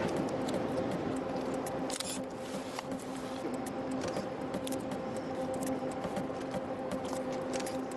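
A steady held drone, one low note with overtones, under light rustling and small clicks of cloth and gloves being handled.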